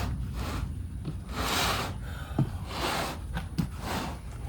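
Books being shifted and lifted in a cardboard box: rustling and sliding with a few light knocks.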